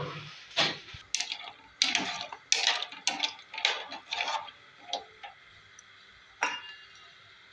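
Metal spoon stirring pasta in a water-filled aluminium saucepan, clinking and knocking against the pot's sides and bottom in a quick, irregular series. One last knock comes near the end.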